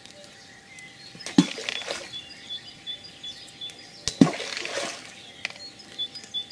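Hand-thrown balls of groundbait splashing into the river: two short, sudden plops, about a second and a half in and again about four seconds in.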